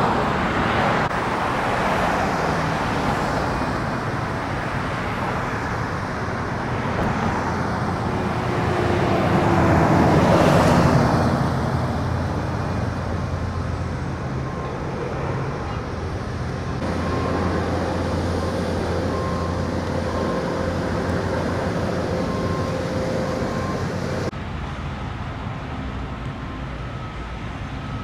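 Road traffic going past, with one vehicle swelling louder and fading away about ten seconds in.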